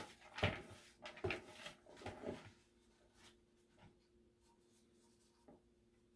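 A few short rustles and knocks from handling in the first couple of seconds, then a quiet room with a faint steady hum.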